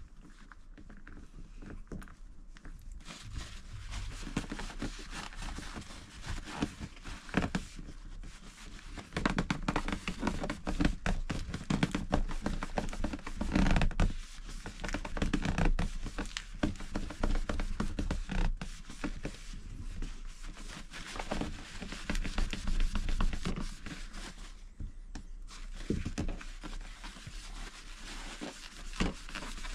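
Hands working a caravan window's trim strip and wiping along it with a paper tissue: a dense run of scrapes, rustles and light knocks.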